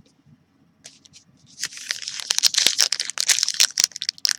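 Trading card pack wrapper being torn open and crinkled, a dense crackling that starts about a second and a half in and goes on to the end.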